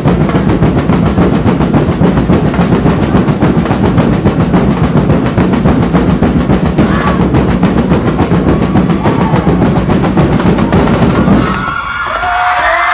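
Festival street-dance drum and percussion band playing a fast, dense beat that stops abruptly about eleven seconds in, followed by the crowd cheering and shouting.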